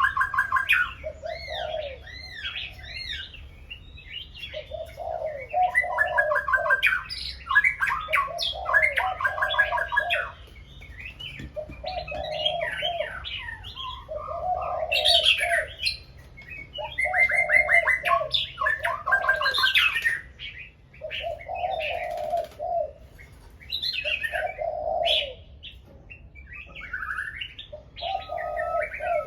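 Several songbirds singing loudly over one another, with quick chirps and trilled whistled phrases and a lower repeated note about every two seconds.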